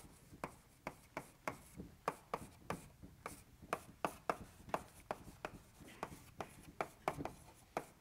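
Someone writing by hand on a board: an irregular run of sharp taps and short scratches of the writing tool, about three a second.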